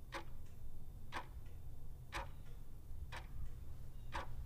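Clock ticking, about one sharp tick a second with fainter ticks between, over a low steady hum.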